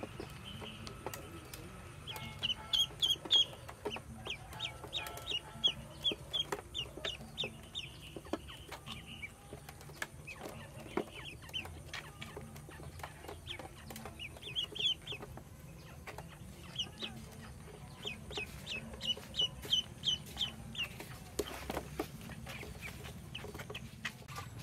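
Ducklings peeping: runs of short, high, downward-slurred peeps, several a second, with a few brief pauses, over a low steady hum.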